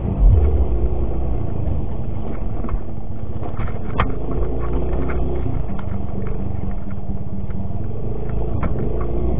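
Yamaha X-Ride 125 scooter's single-cylinder four-stroke engine running at a steady pace while riding off-road over rough ground, with scattered rattles and one sharp knock about four seconds in.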